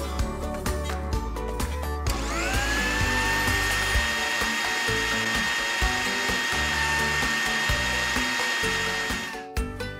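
Countertop blender motor starting about two seconds in with a rising whine, then running steadily as it blends chocolate sandwich cookies and milk into a batter, and cutting off near the end. Background music plays underneath.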